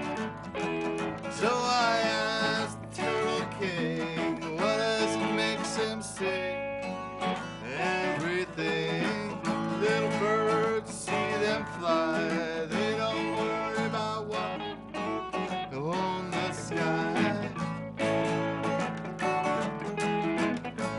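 Live acoustic guitar music, strummed chords in a country style under a melody line that slides between notes.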